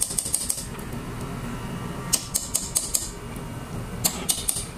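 A metal spoon clicking against a cooking pot in three short runs of quick, light taps, over a low steady hum.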